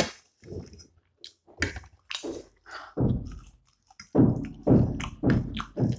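People eating momo in soup: slurping soup off spoons and chewing, in irregular short bursts that grow denser and louder about halfway through.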